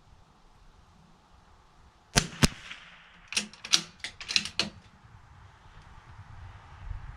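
Two sharp rifle-shot cracks about a quarter of a second apart, then a quick run of about six shorter clicks over the next second and a half.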